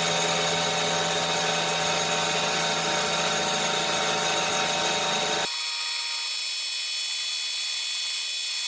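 Power tool running steadily, with many steady whining tones over a hiss. About five and a half seconds in it switches abruptly to a thinner, higher-pitched tool sound without the low hum, which cuts off right at the end.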